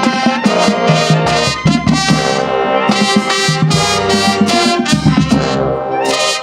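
High school marching band playing loudly, a brass-heavy tune of trumpets and trombones in sustained chords over a rhythmic low end.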